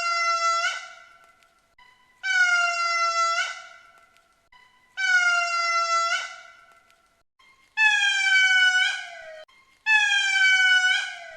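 Ring-tailed lemur calling: five long, high, tonal cries about two to three seconds apart. Each cry dips slightly in pitch and fades away, and the last two are a little lower and fall more.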